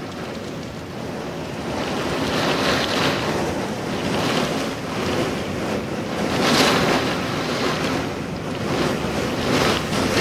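Storm winds of about 75 mph gusting with driving rain, buffeting the microphone in repeated surges; the strongest gust comes a little past halfway.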